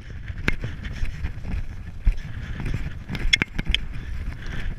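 A horse cantering across grass between cross-country fences, its hoofbeats and tack heard under heavy wind rumble on the rider's camera microphone, with a few sharp clicks from the tack.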